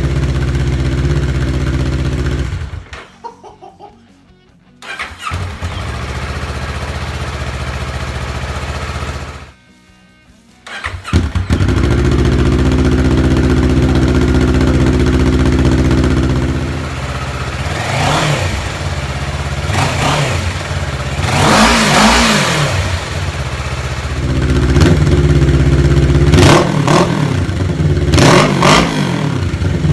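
2015 Kawasaki Ninja 650 parallel-twin engine running through a newly fitted Yoshimura RS-4 full exhaust. It idles steadily, cuts out twice briefly in the first ten seconds, and then is revved in several blips over the second half.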